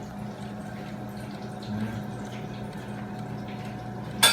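Cuisinart air fryer toaster oven running: a steady fan hum under a hiss of hot air and cooking food. A single sharp click near the end.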